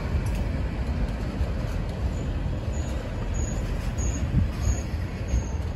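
Freight train of loaded tank cars rolling past, a steady rumble of steel wheels on the rails, with faint high squeaks repeating about every half second from a couple of seconds in.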